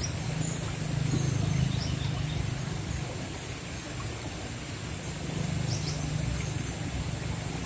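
Steady high-pitched insect chorus of the paddy fields, unbroken throughout, over a low steady rumble, with a few faint short chirps.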